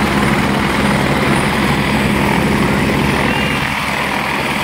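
Helicopters running on the ground with rotors turning: a steady, loud drone of rotor and engine.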